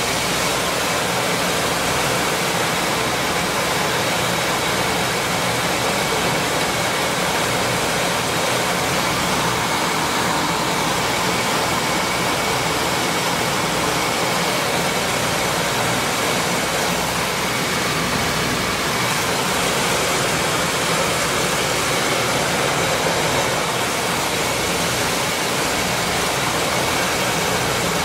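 Maize grits milling machine running steadily while grinding corn, a constant rushing mechanical noise with a faint steady high whine.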